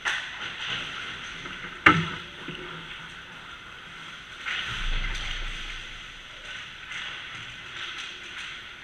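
Ice hockey play at close range: skate blades scraping across the ice, with a sharp crack about two seconds in (the loudest sound) and a smaller one right at the start. A longer scrape of skates on ice comes about four and a half seconds in.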